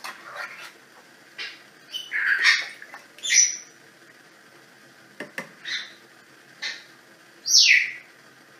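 A tin of chopped tomatoes being emptied into the steel mixing bowl of a Monsieur Cuisine Connect: a run of short scrapes, knocks and squeaks from the tin. One squeak rises in pitch a little after three seconds, and the loudest, near the end, falls in pitch.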